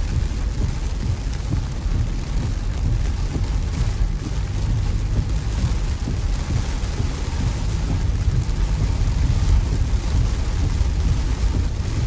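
Rain falling on a moving car, over a steady low rumble of the car driving on a wet road.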